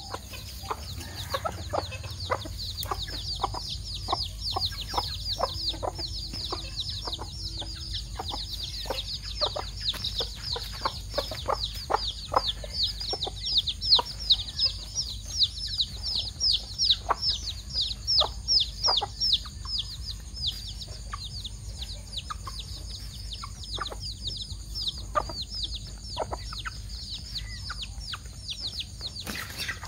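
Young chicks peeping constantly, a dense run of short, high cheeps that fall in pitch, over a hen's clucking and short sharp taps as beaks peck rice off concrete.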